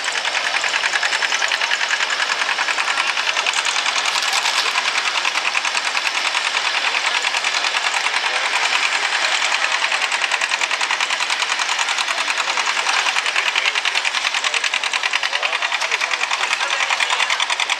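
Farm tractor engine running hard at high, steady revs with a rapid, even exhaust pulse, pulling a weight sled in a tractor pull.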